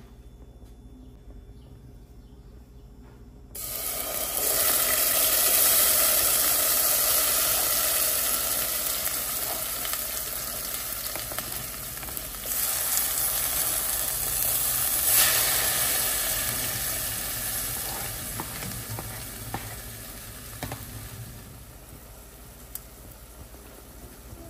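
Diced tomato and onion tipped into a hot, oiled pot, sizzling in the hot oil. The sizzle starts suddenly a few seconds in, surges again about halfway through, then slowly dies down.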